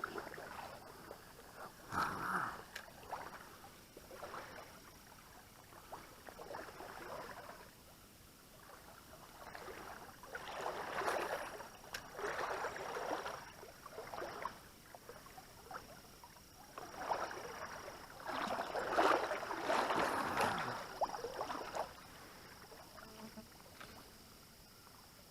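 Water splashing and sloshing in several bursts of a few seconds each, with quieter stretches between.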